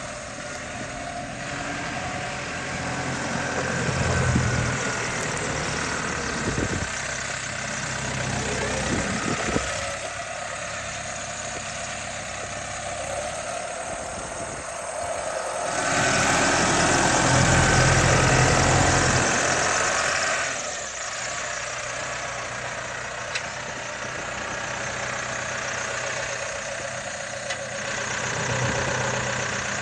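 Case IH JXU95 tractor's diesel engine running as the tractor drives about, rising louder for a few seconds just past the middle, then settling back to a steady idle.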